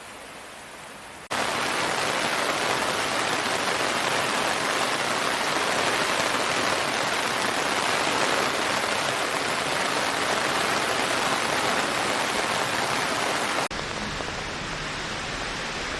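Steady hiss of heavy rain that cuts abruptly to a louder, brighter downpour about a second in, then drops just as suddenly to a quieter, duller rain sound near the end.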